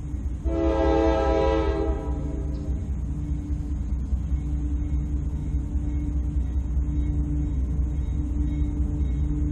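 Approaching freight locomotive's air horn sounding one chord blast of about a second and a half, starting about half a second in, over a steady low rumble that lasts throughout.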